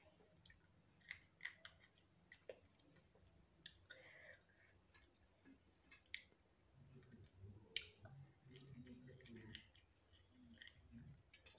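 Close-up eating sounds: a person chewing, with scattered sharp wet mouth clicks and a faint low murmur for a few seconds past the middle.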